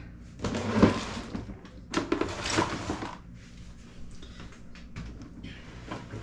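Two bursts of rustling, scraping handling noise with a few light knocks, over a steady low hum.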